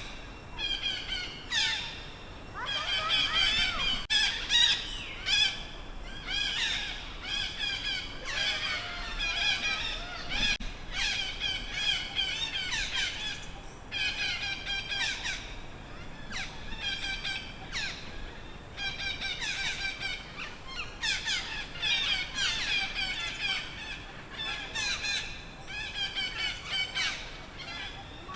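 Baby monkey squealing: high-pitched calls in quick runs of about a second each, repeated again and again with short pauses, a sign of the infant's fear or distress.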